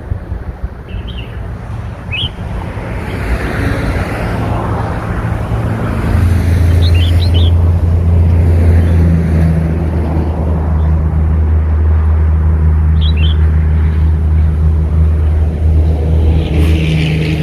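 Red-whiskered bulbul chick giving short, high chirps a few times, over a loud, steady low hum that builds up during the first few seconds and then holds.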